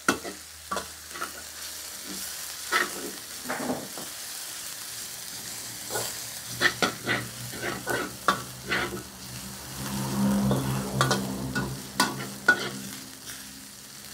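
Metal spatula scraping and clacking against a steel wok over a steady sizzle, as pounded galangal, lemongrass and garlic fry in hot pork lard until fragrant.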